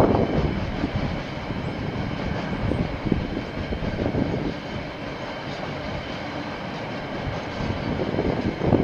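KiwiRail freight train wagons rolling past on the line, a steady rumble of wheels on rail. It is louder at the start, eases through the middle and builds again near the end.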